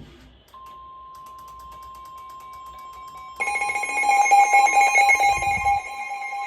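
NOAA Weather Radio's 1050 Hz warning alarm tone, a steady single-pitch beep, comes on about half a second in and signals that a warning broadcast is about to start. About three seconds later a louder, pulsing ringing alarm joins it.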